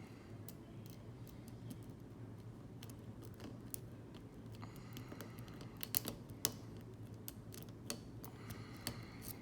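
Small, irregular metallic clicks of a worm pick working the pins of a 4-pin firearm safety padlock under a tension wrench, with two louder clicks about six seconds in.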